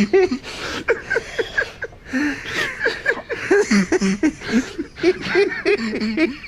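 A man's wheezing laughter: a rapid run of short, high, squeaky gasps, several a second, with no words.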